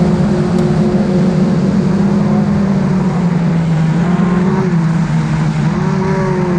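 VITA-01 race car's 1.5-litre four-cylinder engine running hard at racing speed. The revs ease off for a few seconds in the middle, then climb again near the end.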